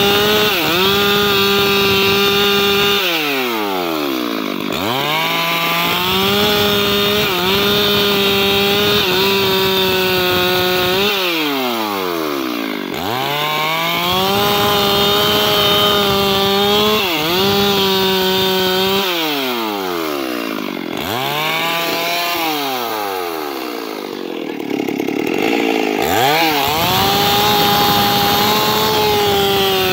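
Stihl two-stroke chainsaw cutting rounds off a small mahogany log, running at high revs with the engine note repeatedly sagging steeply and climbing back, about six times.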